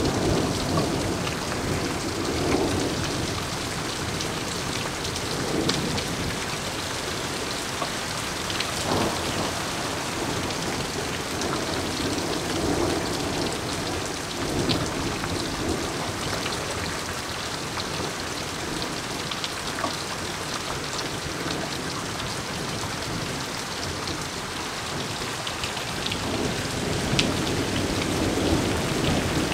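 Heavy rain pouring steadily during a summer thunderstorm, with sharp drips striking nearby surfaces and low rumbles of thunder swelling now and then, building near the end.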